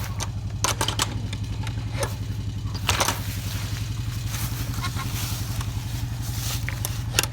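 2009 Honda Foreman 500 ATV's single-cylinder engine idling steadily, with a few sharp clicks and knocks over it.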